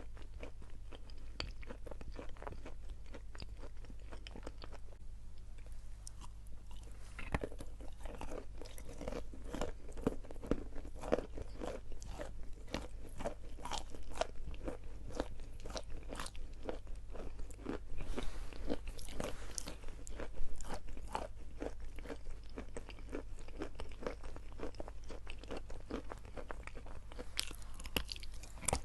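Close crunching and chewing of edible chalk: crisp bites and grinding chews, one after another, over a steady low hum.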